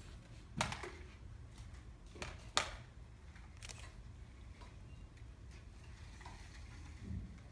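Low steady room hum with four sharp clicks or knocks spread over the first four seconds, the loudest about two and a half seconds in, and a soft thump near the end.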